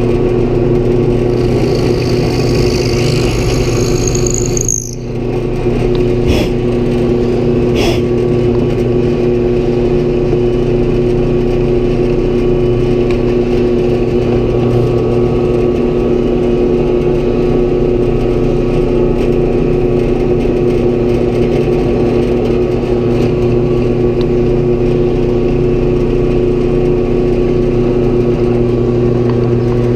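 Drill press motor running steadily, a constant hum with a few fixed low pitches and a brief dip about five seconds in, plus a couple of light clicks.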